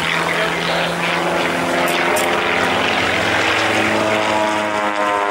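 Pitts Special S-1D biplane's 180 hp Lycoming IO-360 four-cylinder engine and fixed-pitch metal propeller, a steady droning buzz that changes pitch about four seconds in.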